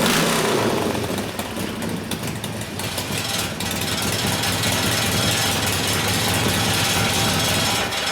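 1972 Harley-Davidson Ironhead Sportster air-cooled V-twin, freshly rebuilt, running loud through short exhaust pipes just after catching on the second kick. It is shut off at the very end.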